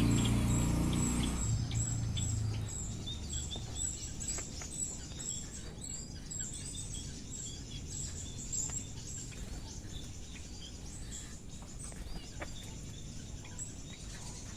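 Small birds chirping in many short, high notes scattered throughout, against a steady background hiss; a low rumble fades away in the first second or two.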